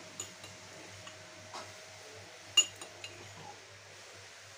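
Scattered light clinks of a steel plate and a glass while pani puri are filled by hand, with one sharper, briefly ringing clink about two and a half seconds in.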